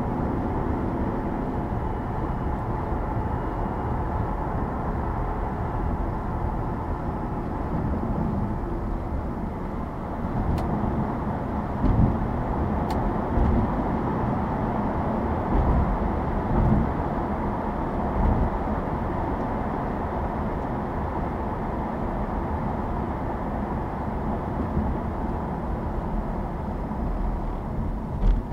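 Steady road and tyre noise from a car driving on the highway, with a few short low thumps about halfway through.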